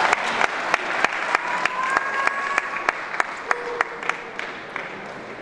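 Scattered applause from a small audience after a table tennis rally, thinning out into a few single claps that fade away.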